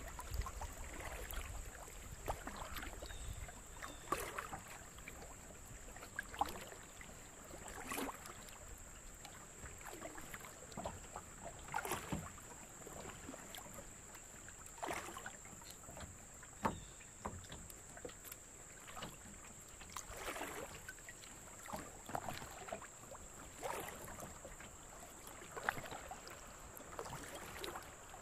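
Kayak paddle blades dipping and pulling through the water in a steady rhythm, a soft splash every second or two.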